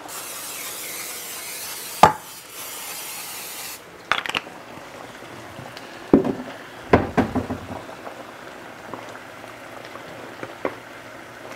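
Aerosol cooking spray hissing onto a pan in two bursts, about two seconds and one and a half seconds long, with a sharp knock between them. A few sharp knocks and clatters follow over faint sizzling.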